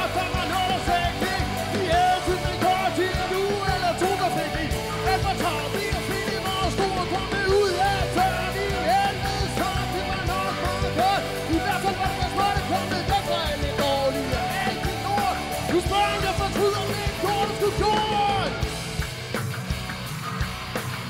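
Live rock band music with electric guitar and drums, carrying a lead line of short notes that bend up and down. The music eases off near the end.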